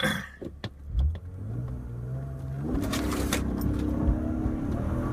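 BMW 328is's 2.8-litre straight-six revving up and accelerating hard from a standstill for a launch at about 4,000 rpm, heard from inside the cabin, with a thump about a second in.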